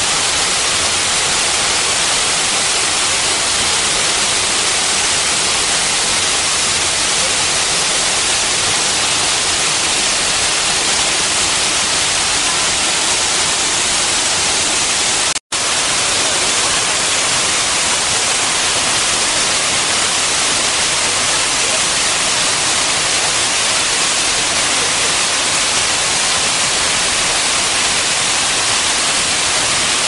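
Tall waterfall's falling water making a loud, steady rush. The sound drops out for an instant about halfway through.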